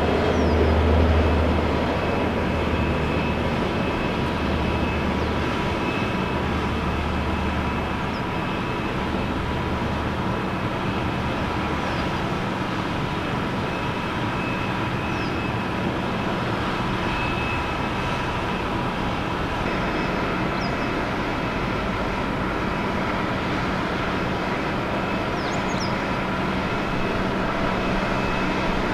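Airliner jet engines running steadily: an even rumble with a high whine held on several steady notes. A deeper low rumble underneath fades out about a third of the way through.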